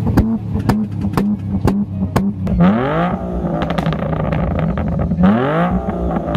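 A sports car's engine idling and blipped twice, the pitch rising and falling back at about two and a half and five seconds in. Sharp ticks come about twice a second over the first couple of seconds.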